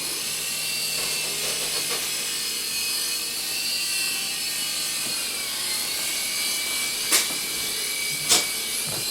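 Small infrared-controlled toy helicopters whirring: a steady high whine from their little electric rotor motors, several tones drifting slowly up and down in pitch. Two sharp knocks come near the end.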